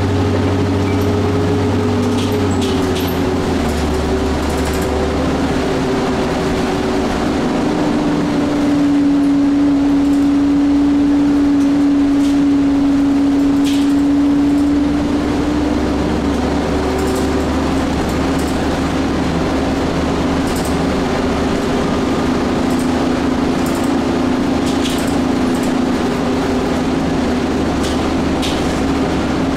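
Cabin sound of a Nova Bus transit bus under way: a steady engine and drivetrain drone whose tone shifts in pitch, growing a little louder between about 9 and 15 seconds. Occasional light clicks and rattles sound over it.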